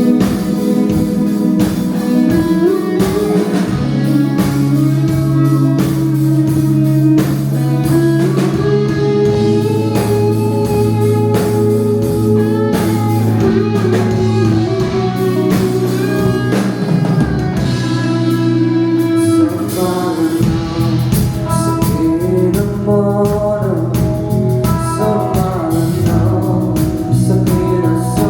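A live band playing through a sound system at a sound check: a singer over guitar and bass, with a drum kit keeping a steady beat.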